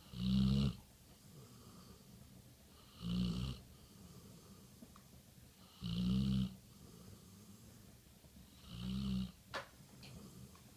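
Chocolate Labrador snoring in her sleep: four snores about three seconds apart, each lasting about half a second.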